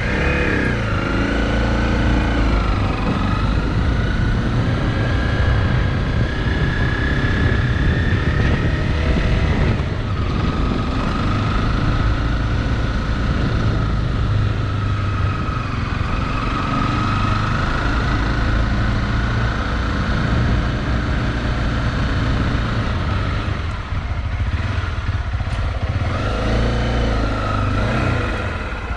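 A vehicle driving: a steady low rumble of engine and road noise, with a faint whine that drifts up and down in pitch.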